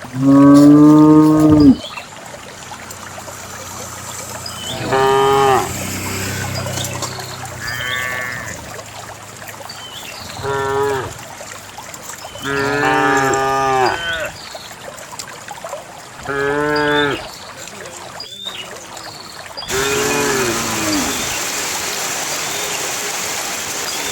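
Cattle mooing over and over, about seven separate calls, the loudest one right at the start and one higher-pitched call about eight seconds in.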